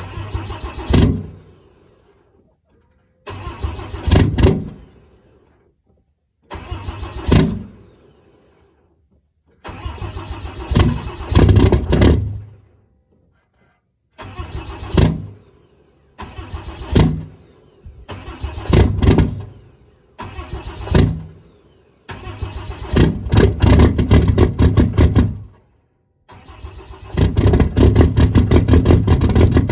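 Cummins inline-six diesel cranking in about nine short bursts that die away between tries, then catching near the end and running on: a cold start at minus 31 without the intake grid heater.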